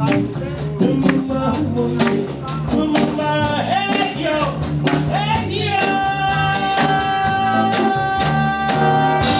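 Live jazz band playing an instrumental passage: drum strokes keep a steady beat under a lead line that slides between notes, then holds one long note from a little past the middle.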